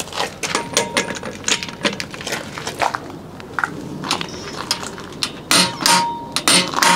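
Large click-type torque wrench, set to 400 ft-lb, worked against a semi-truck lug nut: a string of irregular metallic ratchet clicks and knocks, with short squeaks as the wrench takes the load.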